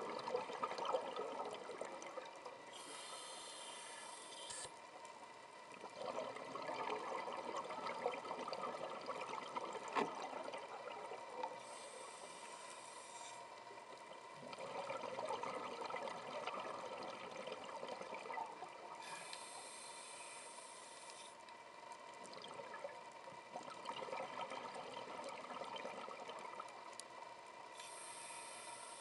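Scuba diver breathing through a regulator underwater: a short hiss of each inhale, four times about eight seconds apart, alternating with longer bubbling rushes of exhaled air.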